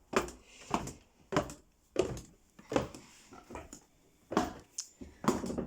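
A steady run of about eight sharp knocks or slaps, roughly one every two-thirds of a second.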